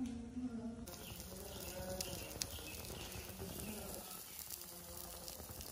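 Faint, steady sizzling of buttered pav buns toasting on a hot flat griddle pan over low heat, with a few tiny crackles.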